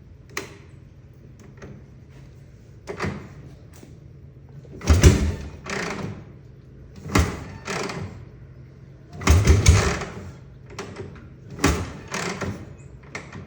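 1960 Harley-Davidson FL Panhead being kick-started cold: a series of kicks, each answered by a short cough or pop, coming in pairs every two to three seconds without the engine catching. A cold hard-start condition, which the owner suspects may come from a faulty solid-state condenser replacement.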